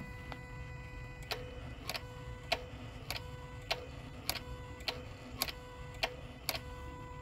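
Electronic throttle body of a 2001 Jaguar XK8 V8 buzzing steadily with the ignition on and the engine not running, a constant high buzz that the owner finds somewhat concerning. A light tick sounds over it a little under twice a second.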